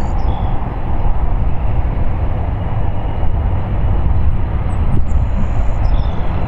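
Steady low rumble of the four GE CF6-80C2 turbofan engines of a Boeing 747-400 freighter running at taxi power.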